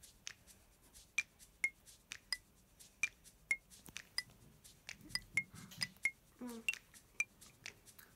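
Irregular small, sharp clicks, about one or two a second, each with a short ring.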